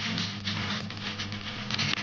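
Background music, the steady low tones carrying on from the guitar track just before.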